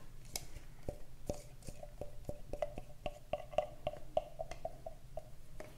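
Light clicks and taps of a spatula and the plastic cup of a mini food processor being handled while ganache is scraped out, coming about three or four a second through the middle and each with a brief faint ring.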